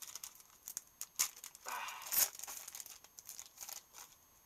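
Foil booster-pack wrapper of a Pokémon trading card pack crinkling and being torn, with scattered small clicks and rustles of handling; the loudest crinkle comes about two seconds in.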